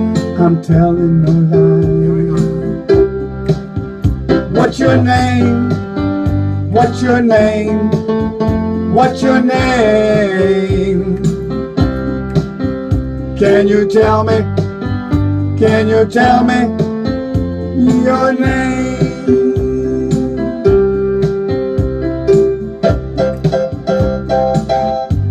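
Playback of a home-studio pop song: an instrumental passage of electric piano or organ chords over a steady drum beat, with a wavering melody line on top.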